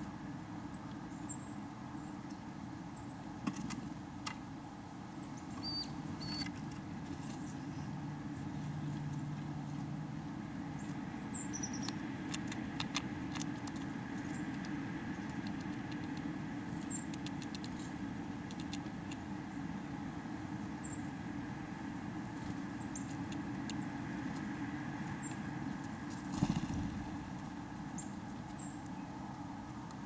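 Backyard ground-feeder ambience: a steady low rumble in the background, with small sharp clicks and taps from birds pecking at seeds and peanut shells, bunched about halfway through, and scattered faint high bird chips. A single thump comes near the end.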